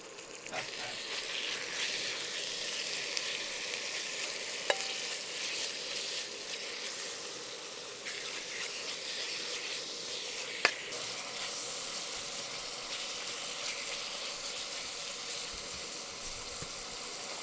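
Chicken pieces sizzling in hot oil with garlic and onion in a stir-fry pan, being stirred: a steady frying hiss. Two sharp taps stand out, about six seconds apart.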